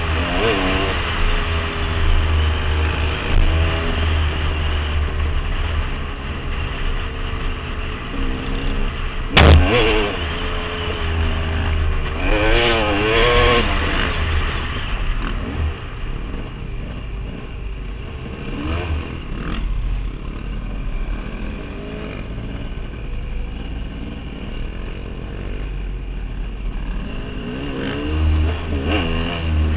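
KTM dirt bike engine running under the rider, its pitch rising and falling as the throttle is worked along a trail, with a burst of revs about twelve seconds in. A single sharp knock sounds about nine and a half seconds in.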